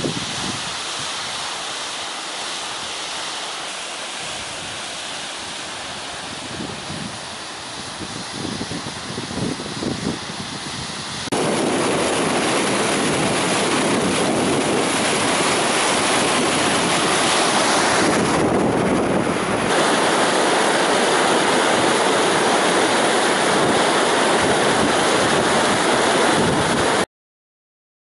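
Waterfall rushing: first a steadier, fainter hiss of falling water with gusts of wind on the microphone, then, about eleven seconds in, a much louder, even rush of white water breaking over rock close by, which cuts off abruptly near the end.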